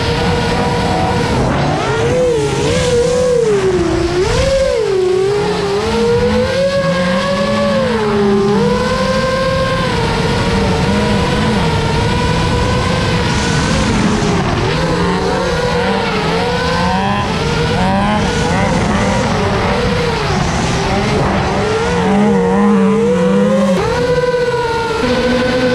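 FPV drone's electric motors and propellers whining, the pitch dipping and climbing again and again with the throttle and holding steadier for stretches in between.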